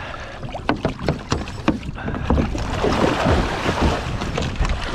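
A big Atlantic halibut thrashing at the surface beside a boat's hull, with irregular splashing and knocks that grow busier about halfway through as it is gaffed.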